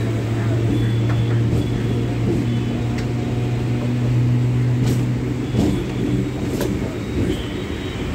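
Chennai suburban EMU electric train running, heard from its open doorway: a steady low hum with rumble, and a few sharp clacks from the track about three, five and six and a half seconds in.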